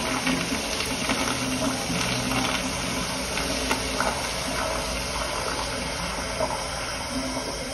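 Flushometer valve on a tankless toilet at the tail of its flush: a steady hiss of water refilling the bowl, slowly easing off.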